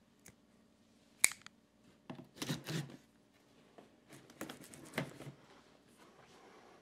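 A sharp click about a second in, then a box cutter's blade slicing through the packing tape and cardboard along the top of a shipping box in two spells of short scratchy strokes.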